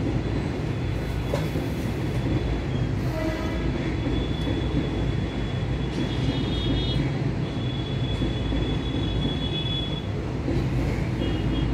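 Steady deep rumbling background noise, with a whiteboard marker squeaking in short high-pitched strokes that come and go as it draws lines.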